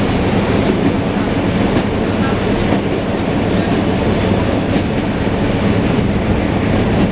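Wheels of an ED9M electric multiple unit clattering over the rails at speed, heard from inside the carriage: a steady rumble broken by a few faint clicks as the wheels cross rail joints.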